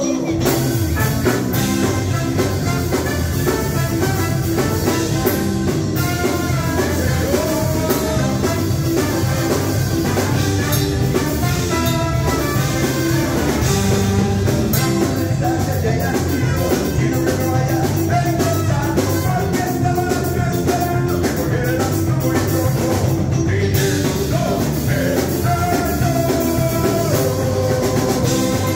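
Live ska band playing: a trombone horn section carries the melody over electric bass, electric guitar and a drum kit.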